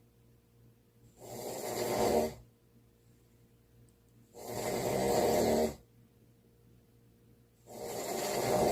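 A sleeper snoring: three long snores about three seconds apart, each lasting a second or more, with quiet breathing pauses between them.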